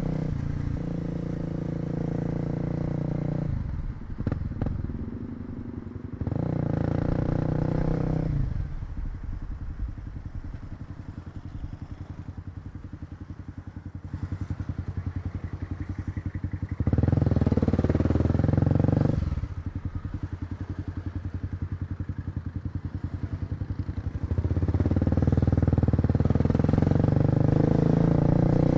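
Kawasaki KLX250 single-cylinder four-stroke motorcycle engine being ridden: it pulls steadily under throttle for a few seconds, drops back to a slow, lumpy beat of separate firing pulses, then opens up again about two-thirds of the way in and runs steadily under throttle near the end.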